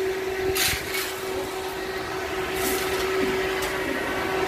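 A steady machine hum with one clear tone runs throughout. A steel shovel scrapes into a gravel pile about half a second in and again near the middle.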